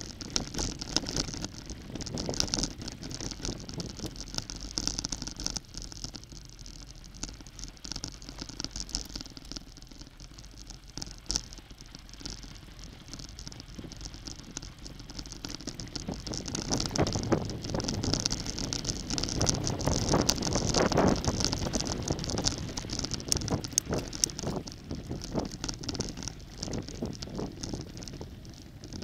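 Bicycle riding over a dirt and gravel trail: tyres crunching on loose stones, with the bike and its mounted camera rattling over bumps. It gets rougher and louder for several seconds past the middle.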